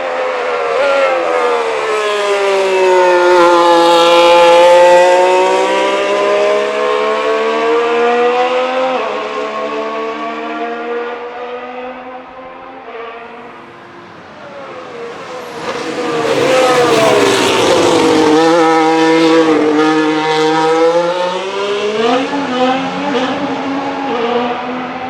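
Racing Bulls VCARB03 Formula 1 car's Red Bull Ford 1.6-litre turbocharged V6 hybrid power unit running on track in two loud passes. The engine note sinks and then climbs again as the car brakes and accelerates, with sudden pitch steps at the gear changes. It fades near the end.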